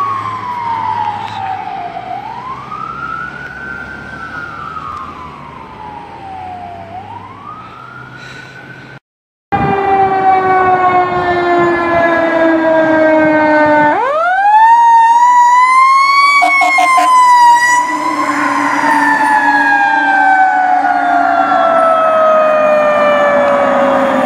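An ambulance's electronic siren wails slowly up and down, fading as it passes. After that, a fire engine's mechanical Q siren winds down, spins up sharply again about two-thirds of the way in, and coasts down in pitch. A few short horn blasts sound over the siren just after it spins up.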